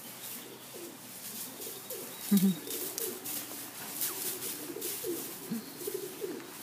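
Pigeons cooing over and over, short calls that bend in pitch, mixed with brief rustling and bumping noises.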